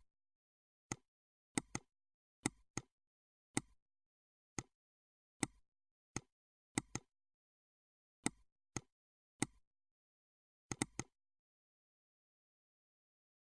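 Computer mouse clicking: about a dozen sharp, irregularly spaced clicks, some in quick pairs like double-clicks, with silence between them.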